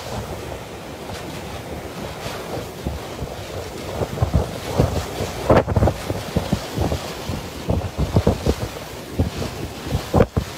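Tropical Cyclone Seroja's winds blowing through trees and buffeting the microphone in heavy gusts, which grow stronger and more frequent about four seconds in.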